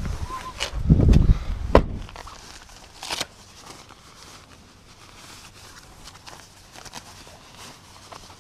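A car door shuts with a heavy thud about a second or two in, then footsteps walk across asphalt.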